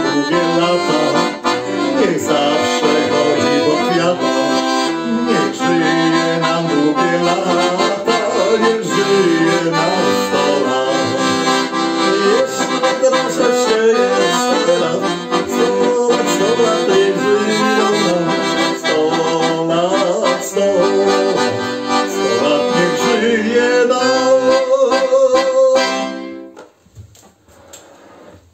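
Piano accordion playing an instrumental melody over chords, which stops abruptly about 26 seconds in.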